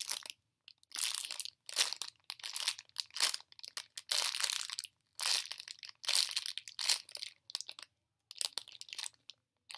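Clear plastic packaging crinkling around an ice cream cone squishy as it is squeezed and handled in its bag, in a string of short separate crackling rustles.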